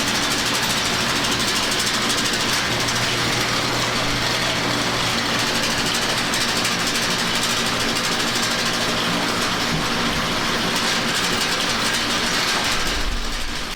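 An engine running steadily under a continuous mechanical clatter, like farm machinery at work.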